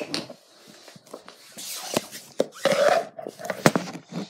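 Rustling and handling noise from a phone being moved about and set down, with a few sharp knocks.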